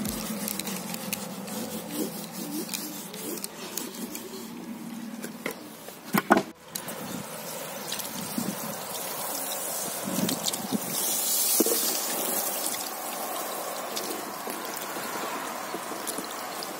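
Water from a garden-hose spray gun hissing onto a caravan's side wall and trickling down the panel, with a stronger burst of spray hiss a little past the middle. A short, loud knock sounds about six seconds in.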